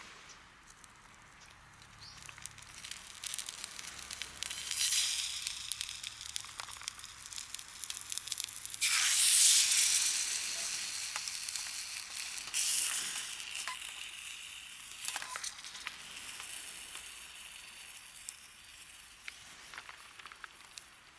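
Food sizzling in a hot pan, the hiss swelling a few times and loudest in a sudden surge about nine seconds in, with scattered small crackles and pops.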